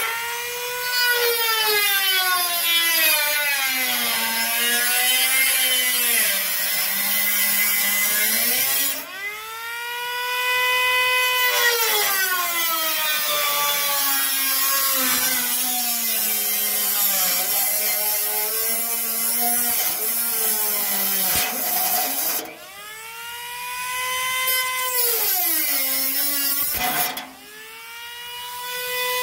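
Handheld rotary tool cutting a hole in a Craftsman lawnmower hood: a high motor whine that sags lower in pitch as the bit bites into the cut and climbs back to full speed when it is eased off. This happens several times, with two brief drops in speed near the end before it spins up again.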